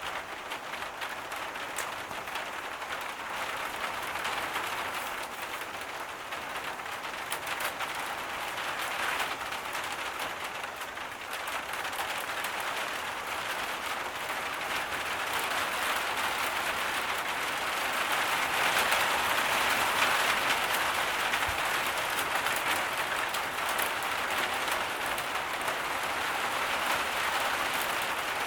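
Heavy tropical rain pouring steadily, a dense even hiss that swells louder about two-thirds of the way through.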